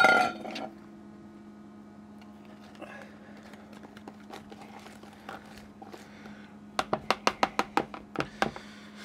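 A stainless steel mixing bowl is set down with a sharp clank that rings briefly. Near the end, a metal whisk beats batter in a mixing bowl, clicking rapidly against the bowl about eight times a second for under two seconds. A steady low hum runs underneath.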